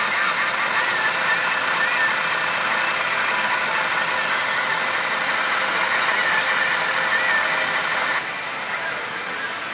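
Loud steady din of a pachinko and pachislot hall: many machines' electronic music and effect sounds blurring into one dense wash, with the pachislot machine's own sounds mixed in. It drops a little about eight seconds in.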